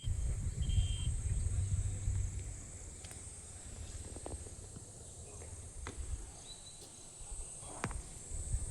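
Insects calling in a steady high-pitched chorus, with a low rumble during the first couple of seconds and a few faint clicks.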